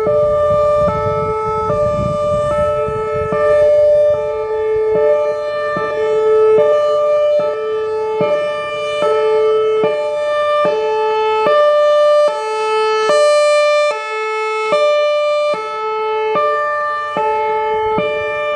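Whelen Vortex R4 electronic warning siren sounding its hi-lo signal, two tones alternating a little faster than once a second, with a clipping, distorted edge. About 13 seconds in, its sound turns brighter and harsher for a couple of seconds.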